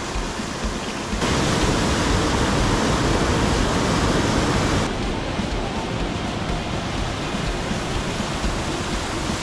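Rushing water of a mountain stream, a steady rush that gets louder abruptly about a second in and drops back to its earlier level abruptly about five seconds in.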